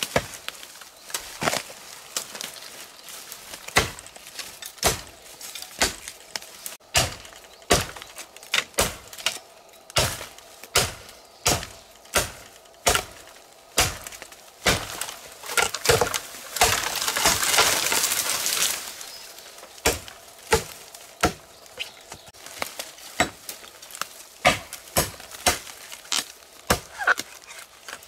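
Machete chopping at the base of a bamboo culm: sharp strikes about once a second, with a couple of seconds of rustling noise a little past the middle.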